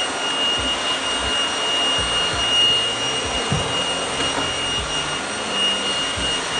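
Vorwerk VB100 cordless vacuum running with its SP100 vacuum-mop head: a steady motor hum with a high whine, as the mop is pushed over floor tiles. A few dull knocks come through, the clearest about three and a half seconds in.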